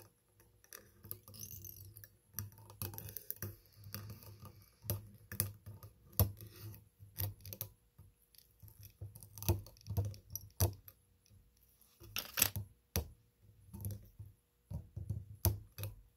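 Irregular light clicks and soft taps from hands working a wire whip-finish tool around the thread at a fly-tying vise, tying off the fly's head.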